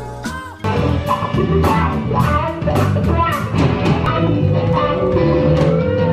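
A live cover band playing rock, with electric guitars over bass and a drum kit, cutting in abruptly about a second in.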